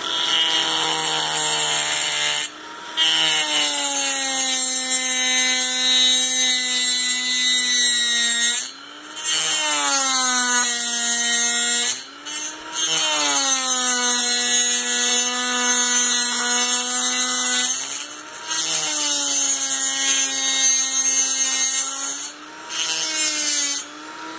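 High-speed rotary tool with a grinding bit porting a Husqvarna 372 XP chainsaw cylinder, a steady high whine with grinding hiss. The pitch sags as the bit bears into the metal and rises each time it is eased off, and it breaks off briefly about five times.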